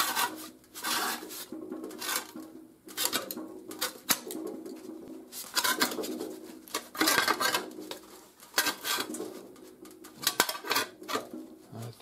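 Sheet metal being curved by hand over the jaw of a bench vise to shape a patch panel: irregular scraping and rubbing of the panel against the vise, with light metallic clanks and brief ringing from the flexing sheet.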